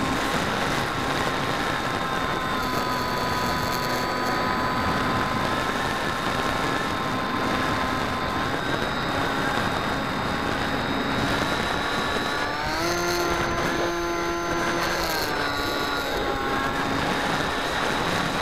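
Electric motor and pusher propeller of a HobbyKing Bixler 2 foam RC plane whining steadily, heard from a camera on board with wind noise rushing past. About thirteen seconds in, the whine jumps up in pitch for about two and a half seconds, then falls back.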